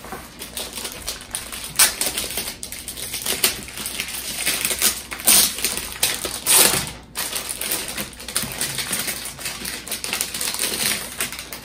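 Clear plastic packaging bags crinkling and rustling as they are handled and opened by hand, an irregular crackle with several louder crunches.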